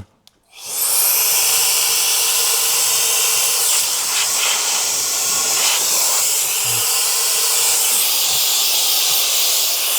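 A loud, steady hiss of rushing air that starts about half a second in and holds evenly: air being blown through to flush smoke out after a smoke test for a vacuum leak.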